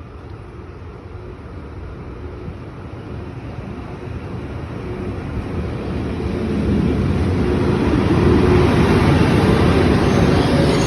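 An approaching train's rumble, growing steadily louder as it nears and then holding loud.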